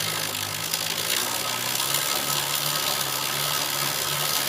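Bicycle chain and sprocket whirring as the rear wheel is turned at a normal cruising pace, back-driving a small 250 W electric motor used as a generator, with a low hum that shifts in pitch a few times.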